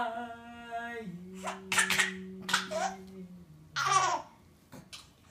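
Baby laughing in three short giggling bursts, the last about four seconds in, over a woman's long hummed note that drops in pitch about a second in and ends halfway through.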